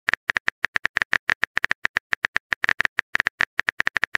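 Phone keyboard typing sound effect: a steady stream of short key clicks, about seven a second, as a text message is typed out.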